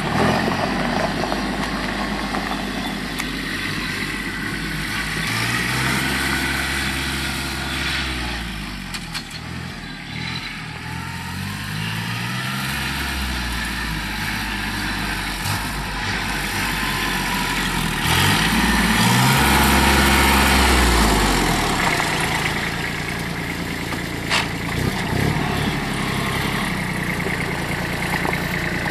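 Kubota B2100 compact tractor's three-cylinder D1005 diesel engine running as the tractor is driven about. Its pitch swells and falls twice, and it is loudest about two-thirds of the way through.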